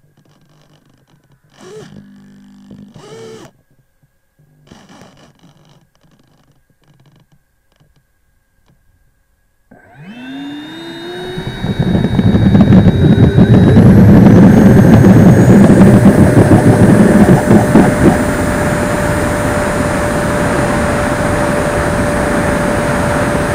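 Electric ducted fan of a Freewing L-39 model jet, heard from on board: after near quiet with a few brief faint sounds, it spools up about ten seconds in with a rising whine. It builds to a loud rushing at full throttle during the takeoff roll over a rough runway, then eases a little to a steady high whine after about eighteen seconds as the jet climbs out.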